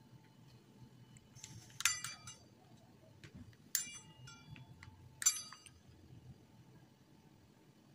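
Three sharp metallic clinks, spaced about a second and a half apart, each ringing briefly: a pizza cutter's steel wheel striking the hard, glossy work surface as it cuts through dough.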